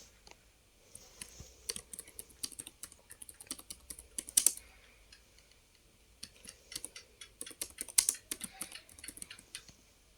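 Computer keyboard typing: two runs of quick keystrokes with a short pause in the middle, the loudest strokes near the middle and near the end.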